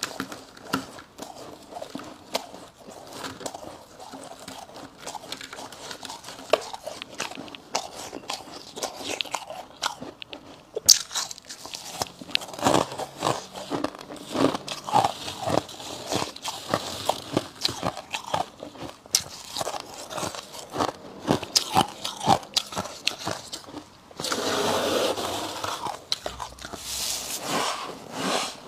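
Bites and crunchy chewing of refrozen freezer frost, a steady run of crackling crunches. There is a sharp bite about eleven seconds in and a louder, continuous stretch of crunching a little before the end.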